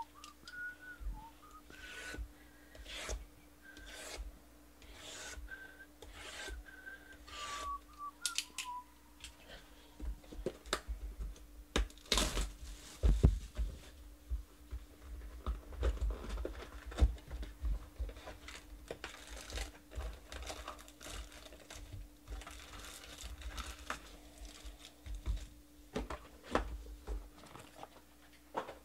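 Foil trading-card packs being handled, shuffled and stacked on a table: crinkling and rustling with many light taps and clicks, busiest from about ten seconds in. Over the first several seconds a person whistles softly.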